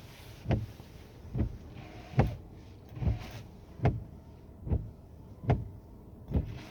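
Changan CS55 Plus windshield wipers sweeping back and forth during a washer cycle, one stroke about every second, each with a swish and a soft thump at the end of its travel.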